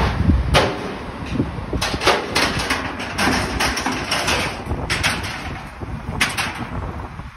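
Irregular metal clanks and rattles from a car transporter's ramps and deck during unloading, a dozen or so short knocks over a low rumble.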